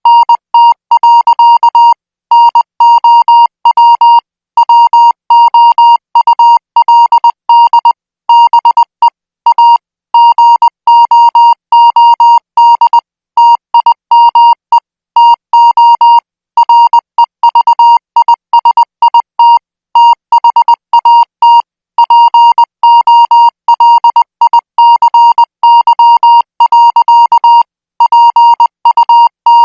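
Morse code sent as an electronic beep tone at 20 words per minute: one steady high-pitched beep switched rapidly on and off in dots and dashes, in groups parted by short pauses.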